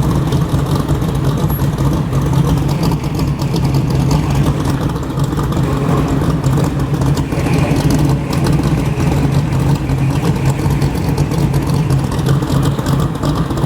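Vehicle engine running, a loud, steady low hum.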